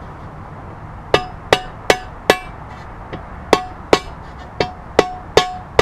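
Mallet tapping a steel bearing driver to seat a new differential bearing race into a Ford Fiesta ST transmission case: about ten sharp taps, each with a short metallic ring. They come as a run of four starting about a second in, then a brief pause, then six more.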